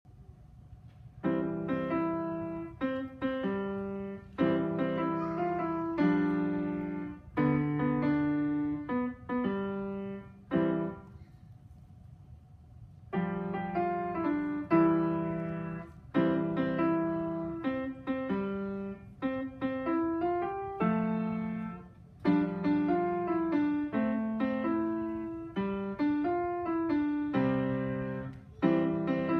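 Grand piano played solo by a young student: short phrases of chords and melody, starting about a second in, with a pause of about two seconds near the middle before the playing resumes.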